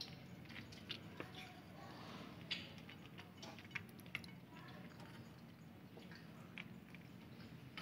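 Faint, scattered light ticks as finely chopped onion is sprinkled by hand onto a dish of yogurt-topped bread on a glass plate, over quiet room tone.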